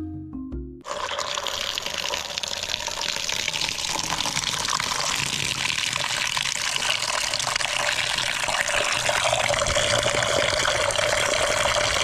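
Water running steadily into a container for about eleven seconds, starting about a second in: washing the peeled sweet potatoes. A few notes of background music are heard just before the water starts.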